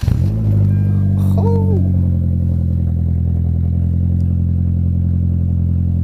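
Car engine firing up and settling into a steady, loud cold-start idle.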